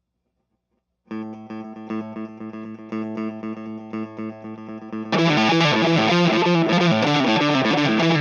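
A 1980 Gibson RD Artist electric guitar starts about a second in, played clean. About five seconds in, the MuFx BoosTron 3's Rat-style distortion channel is kicked on, and the guitar turns much louder and heavily distorted.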